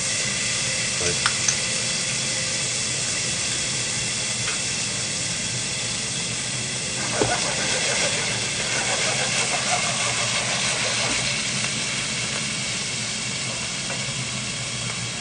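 Minced garlic paste frying in hot oil in a stainless steel pan, a steady sizzle. A couple of light clicks come about a second in and a sharper knock about seven seconds in.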